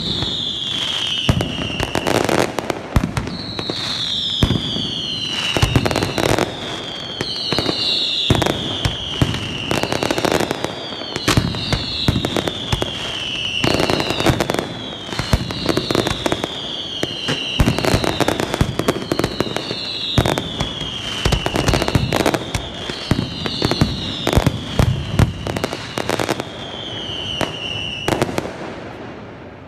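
Pirotecnia Ferrández aerial fireworks display: a dense run of shell bursts and bangs, with a high whistle falling in pitch repeating every second or two over them. The bangs and whistles thin out near the end.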